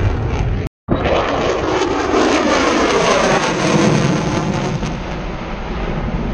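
Powered aircraft flying past overhead, a loud engine sound whose pitch slides steadily down as it goes by. A short cut to silence breaks it just under a second in.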